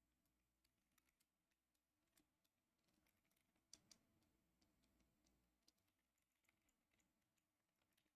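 Very faint typing on a computer keyboard: irregular single keystrokes.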